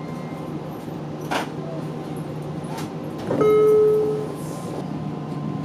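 Running noise inside a JR Kyushu 815 series electric train: a steady low hum with a couple of sharp clicks. About three seconds in comes a loud single held tone lasting under a second.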